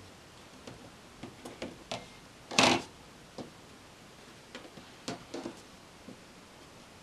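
Light irregular clicks and taps of small objects being handled on a work surface, with one louder short scrape about two and a half seconds in.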